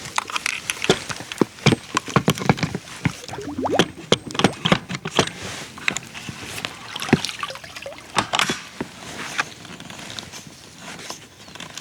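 Water sloshing and splashing, with many irregular sharp knocks and clatters, busiest in the first half and thinning out toward the end.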